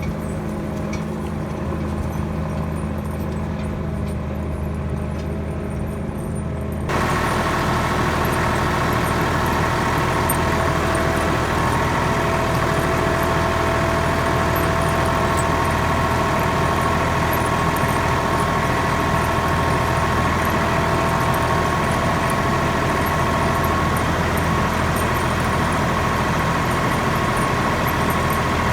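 Tractor engine running steadily. About seven seconds in it grows louder and harsher, with a higher steady whine added.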